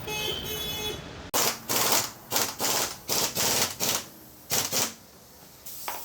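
Pneumatic impact wrench run in a quick series of short rattling bursts, about nine in all, tightening the motorcycle's front sprocket nut.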